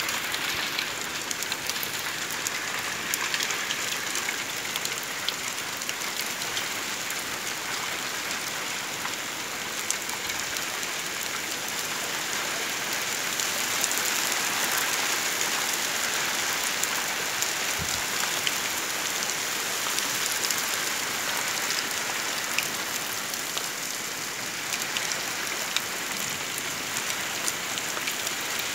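Steady rain falling on standing water and wet bare ground, a continuous hiss dotted with many individual drop ticks, swelling slightly midway.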